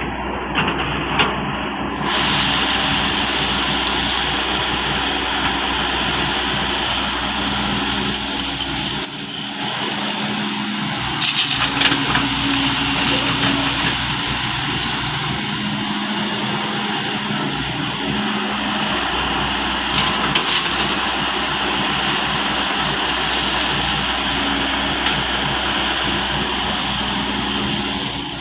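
Excavator's diesel engine running steadily, its tone stepping up and down at times, with a few short knocks.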